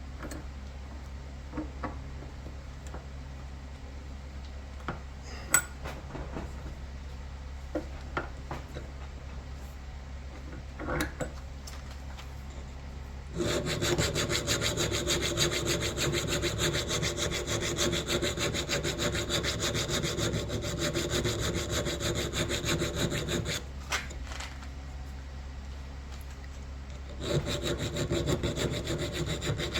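A few scattered clicks and knocks, then a metal file rasping in quick strokes on a steel knife blade, cutting a sharpening choil. The filing runs for about ten seconds from roughly halfway through, stops briefly with one knock, and starts again near the end. A low steady hum lies under it all.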